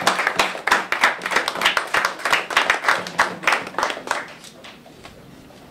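Small audience applauding, a dense patter of separate hand claps that thins out and dies away about four to five seconds in.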